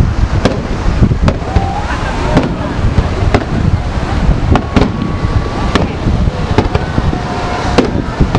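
Aerial fireworks shells bursting in quick succession: about a dozen sharp bangs at irregular intervals, over a steady low rumble.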